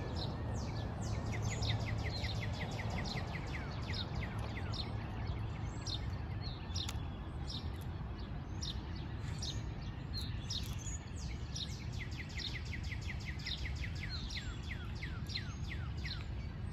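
Wild birds chirping: rapid runs of short, quick falling chirps, thickest about a second in and again in the last few seconds, over a steady low background rumble.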